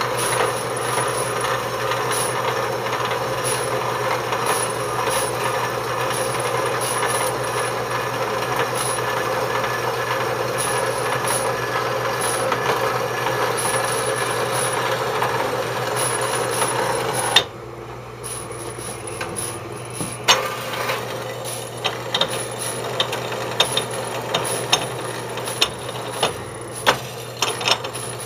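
Electric metal bandsaw blade cutting steadily through steel tubing, a continuous rasping grind over the motor hum. About 17 seconds in the cutting noise drops away abruptly as the blade breaks through; the saw keeps running with irregular clicks and ticks, and the cut does not finish cleanly, which the owner puts down to the blade needing more tension.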